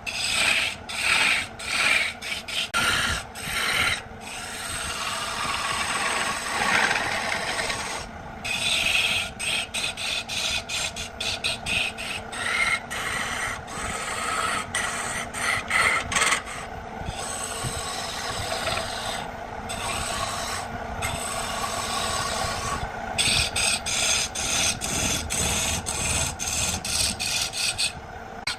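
Turning chisel cutting into a spinning cedar blank on a wood lathe: a rough scraping hiss of shavings being cut. It comes in runs of short strokes with brief breaks, and in a few longer, steadier passes.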